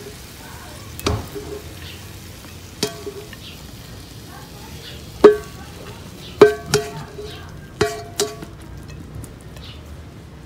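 Spatula knocking and scraping against a nonstick frying pan as glazed stir-fried chicken wings are pushed out onto a plate: about seven sharp knocks, each with a brief ring, coming closer together in the second half, over a faint steady sizzle.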